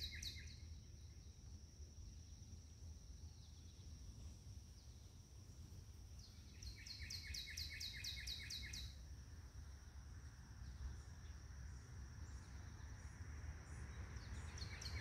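A songbird singing a fast trill of repeated down-slurred notes, about five a second for some two seconds, about seven seconds in and again near the end. Under it runs a faint steady high tone and a low rumble.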